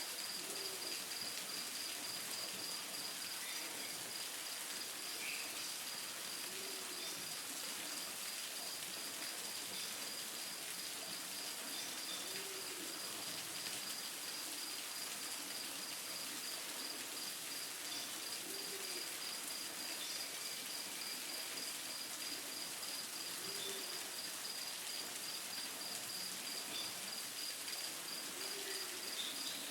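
Steady rush of falling and flowing water from a forest waterfall, with an insect chirping in a fast, even pulse on a single high note.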